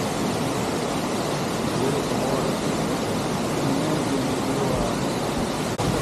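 Waterfall pouring into a pool: a steady rushing noise, with a brief dropout near the end.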